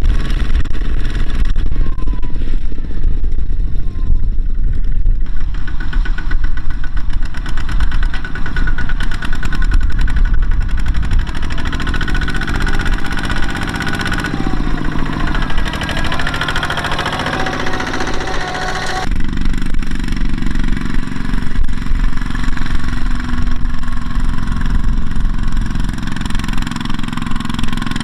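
Two-wheel walking tractors' single-cylinder diesel engines running steadily while pulling loaded trailers through a muddy field. The sound changes abruptly a couple of times as one tractor gives way to another.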